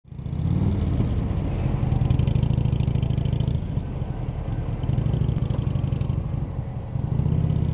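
Sport motorcycle engine running under way, heard from the rider's seat: it pulls hard, eases off about three and a half seconds in and again around six seconds, and picks up once more near the end.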